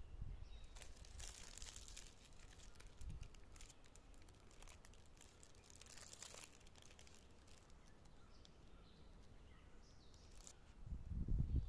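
Thin plastic film crinkling in a few short bursts as processed cheese slices are peeled out of their individual wrappers, with a low rumble near the end.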